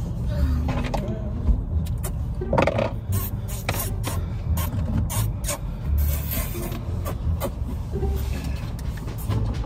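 Low rumble inside a car cabin, with scattered clicks and scraping throughout.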